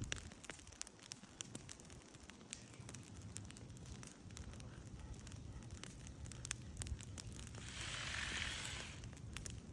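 Wood fire crackling, with frequent sharp pops and snaps over a low steady rumble. A hiss lasting about a second comes near the end.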